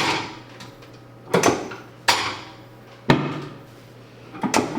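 A handful of sharp knocks and clunks, roughly one a second, the last two close together near the end.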